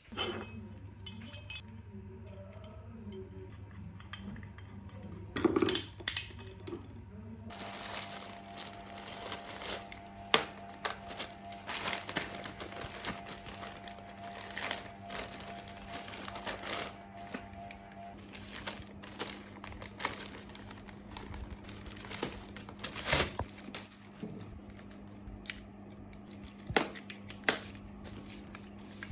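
Small metal parts clinking and tapping repeatedly as they are handled, over soft background music.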